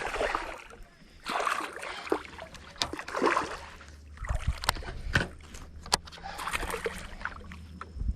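Water splashing and sloshing against a small one-man fishing boat, with several sharp knocks and clicks; a low steady hum starts about halfway through.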